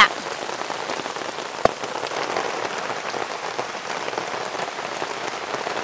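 Steady rain falling on leaves and ground, an even hiss, with one short knock about a second and a half in.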